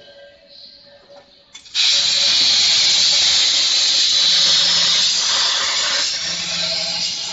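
CNC plasma cutting torch striking its arc with a short click under two seconds in, then cutting through metal plate with a loud, steady hiss.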